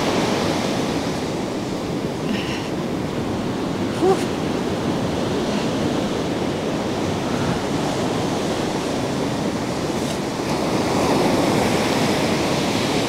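Surf breaking and washing up a sandy beach, a steady rushing noise that grows a little louder near the end. A brief rising note sounds about four seconds in.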